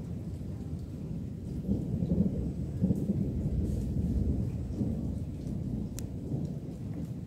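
Rolling thunder, a low rumble that swells about a second and a half in and slowly eases off toward the end, over steady rain with a few sharp ticks.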